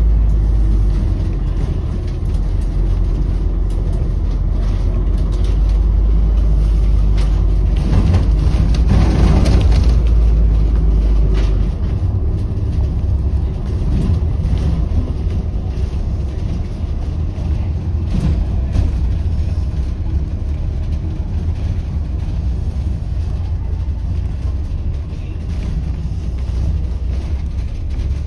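Steady low rumble of a moving bus, heard from on board the upper deck, with city traffic around it. A louder swell of noise comes about eight to ten seconds in, and the deepest rumble eases off a couple of seconds later.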